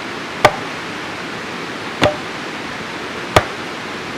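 Three sharp chopping strikes into wood, about a second and a half apart: blows splitting a piece of firewood, over a steady rushing background noise.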